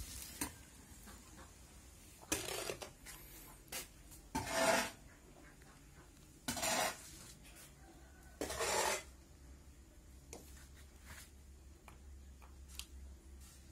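Hoe scraping through a sand-and-cement mortar mix: four rasping strokes about two seconds apart, with faint clicks and scuffs between.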